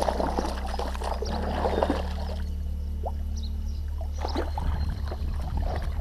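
A hooked fish splashing and thrashing at the water's surface as it fights the line, in bursts through the first couple of seconds and again about four seconds in. Steady background music runs underneath.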